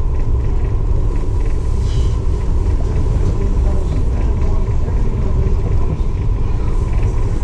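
Steady low rumble of a ferry under way, with a faint steady hum and faint background voices.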